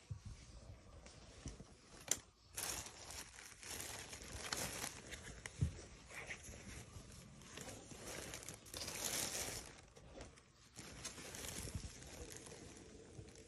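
Thin plastic shopping bag rustling and crinkling in irregular bursts as a T-shirt is pulled out of it, with a couple of light knocks.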